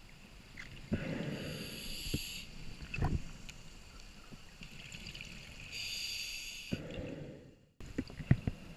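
Scuba regulator breathing underwater: two breaths, each a hissing draw through the regulator and a low bubbling rush of exhaled air. A few short knocks follow near the end.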